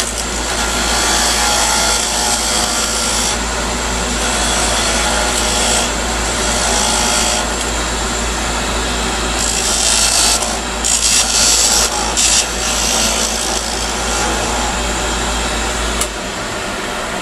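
Wood lathe running while a narrow turning tool cuts into the spinning top of a small turned chess piece, several hissing cuts of a second or two each over a steady motor hum, working the piece down toward parting it off. About sixteen seconds in there is a sharp click and the low motor hum drops.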